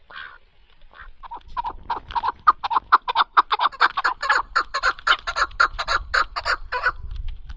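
A farm fowl calling in a fast, even run of short clucking notes, about five a second, starting about a second in and stopping shortly before the end.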